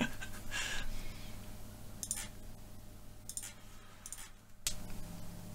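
Quiet room with a steady low electrical hum and a few soft, breathy bursts of laughter. The sound drops out suddenly for a moment about four and a half seconds in.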